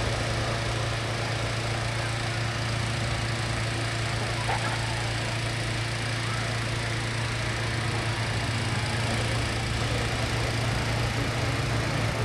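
Steady low engine drone with an even rushing noise over it, unbroken throughout.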